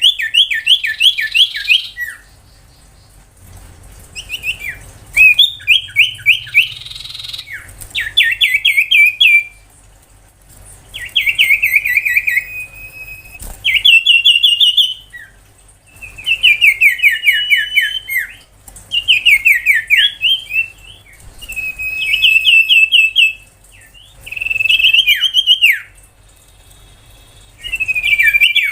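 Common iora (sirtu) singing its rapid 'tembakan' song. About ten bouts of quickly repeated notes, each lasting one to two seconds, many sliding downward in pitch, with short pauses between bouts.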